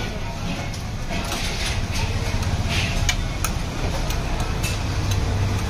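A metal knife clinking against an aluminium tray as dhokla squares are lifted onto a steel plate: several short sharp clicks over a steady low rumble of street traffic.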